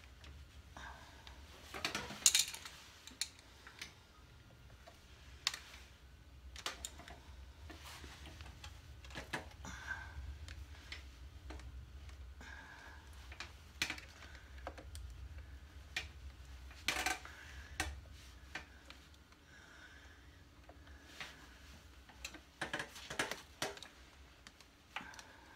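Scattered light clicks, taps and rustles of hands handling an alternator stator wire with bullet connectors, feeding it through the hole in the crankcase, with the sharpest clicks about two seconds in and again near the middle and end.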